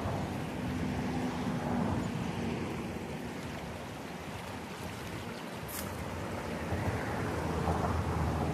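Fast-flowing Murray River floodwater rushing and churning around submerged trees: a steady rush of water.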